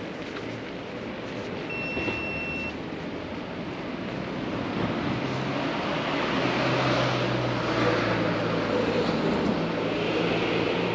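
Street traffic: a motor vehicle's engine running nearby, growing louder partway through and staying close. A brief high beep sounds about two seconds in.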